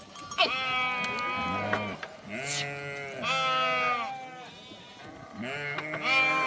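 Several sheep bleating over one another in a string of drawn-out calls, some high-pitched and some deeper.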